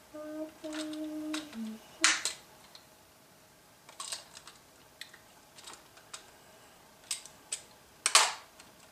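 Sharp clicks and clacks of LEGO plastic pieces being handled and fitted on a LEGO train car. The loudest clicks come about two seconds in and near the end, with a brief hummed note at the start.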